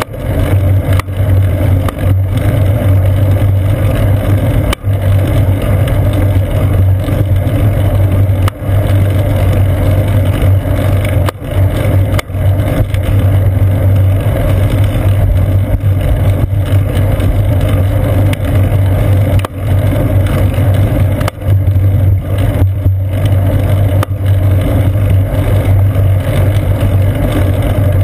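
Steady, loud wind and road-vibration rumble picked up by a seat-post-mounted GoPro Hero 2 on a moving bicycle, with a few brief dips and knocks as the bike goes over bumps.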